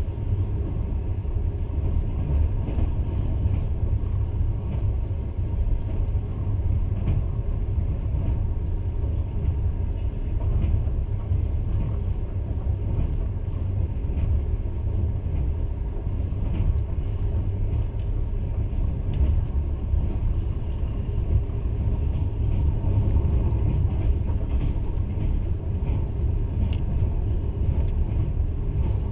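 Passenger train running along the track, heard from inside the carriage: a steady low rumble from the wheels and running gear, with faint scattered clicks and rattles.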